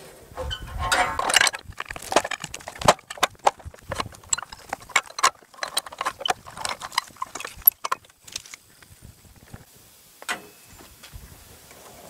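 Irregular wooden knocks, clicks and scrapes as freshly sawn hemlock is handled on the steel bed of a Wood-Mizer LT15 Go sawmill. They come thick and fast for about eight seconds, then only a few isolated knocks.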